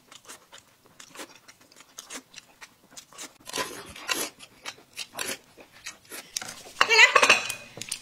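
Close-up eating sounds: rapid wet clicks of chewing a dumpling, then a noisy slurp as the dumpling is sucked off the plate in its sauce about halfway through. A short loud burst of voice comes near the end.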